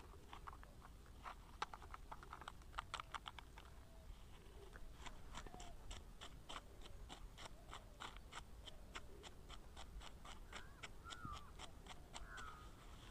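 Faint clicking and scraping of a wooden stick stirring potassium permanganate solution in a small plastic cup. The clicks are irregular at first, then come fairly regularly at about four a second.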